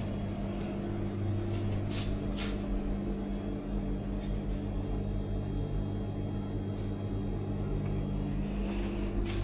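Steady low machine hum, with a few light clicks about two seconds in and again near the end.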